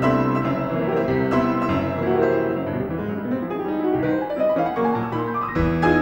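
Solo piano playing classical music: a run of quickly changing notes over held low bass notes.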